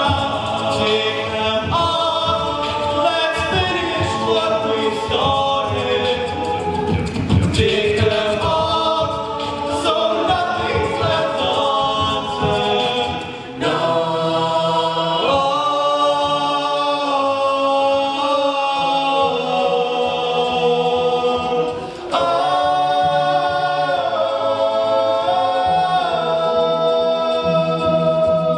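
Male a cappella group singing in close multi-part harmony into microphones, with vocal-percussion beats under the chords in the first half. About halfway the beat falls away and the group holds long sustained chords, with two brief dips in level.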